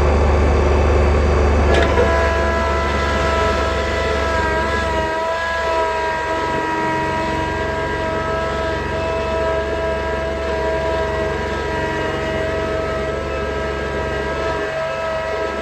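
Tractor running while it pulls a box blade, with a strong low engine hum. About two seconds in, a click, and then a steady high whine sets in and holds.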